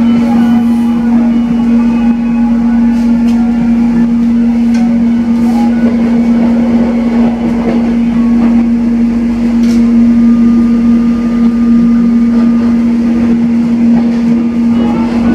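Cabin of the airport rail link electric multiple-unit train while running: a loud, steady hum holding one constant pitch over the rumble of the moving train, with a few light clicks.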